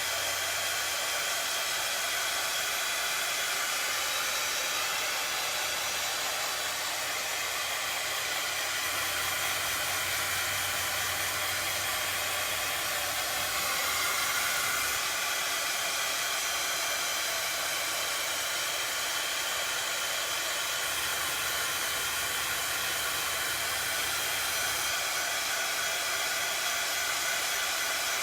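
Craft heat tool (embossing heat gun) blowing steadily, a constant fan-and-air whir, as it dries chalk paint.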